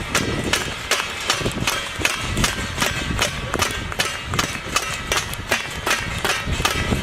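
Rhythmic clapping, sharp strikes at about three to four a second, keeping a steady beat.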